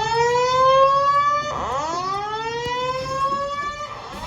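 Simplex fire alarm speakers sounding the rising whoop evacuation tone. It goes as repeated rising sweeps about two and a half seconds long, a new one beginning about a second and a half in and another right at the end.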